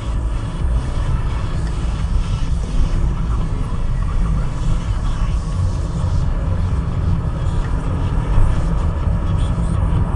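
Steady low rumble of a car's engine and tyres on a wet road, heard from inside the cabin while driving in traffic.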